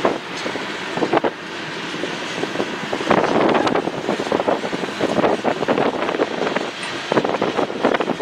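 A train rolling past: a steady rumble of wheels on rail with irregular clanks and rattles from the passing cars.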